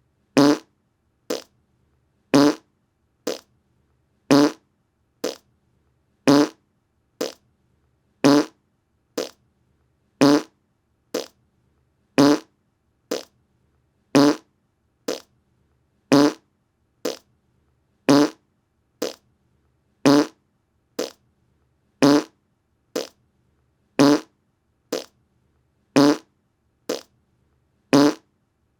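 Short fart sounds repeating in a steady loop: a louder, longer one about every two seconds, each followed about a second later by a shorter, quieter one.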